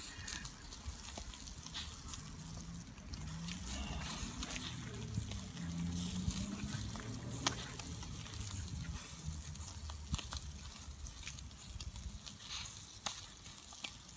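Meat grilling over charcoal: juices and fat sizzling and crackling on the hot coals, with scattered small pops.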